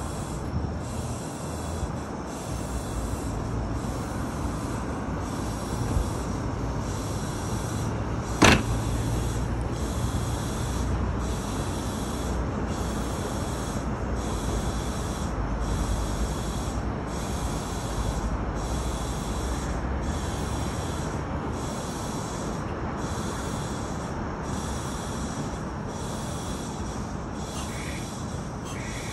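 A Meitetsu 1000-series Panorama Super electric train stands at the platform with its equipment running: a low steady hum, and a single sharp click about eight seconds in. A high chirping pulse repeats about once a second throughout.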